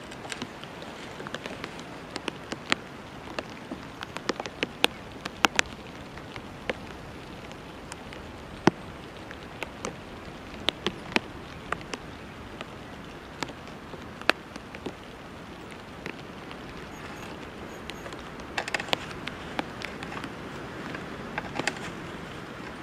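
Hand auger boring into a log: the spiral bit crunches through the wood with irregular sharp clicks and cracks over a steady background hiss.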